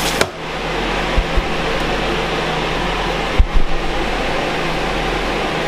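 Steady whir of an air scrubber's fan with a low hum. Two pairs of dull thumps cut in, about a second in and again about two seconds later.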